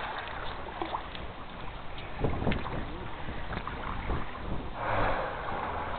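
Wind buffeting the microphone by the water, a steady low rumble with scattered faint knocks and a brief louder rush of noise about five seconds in.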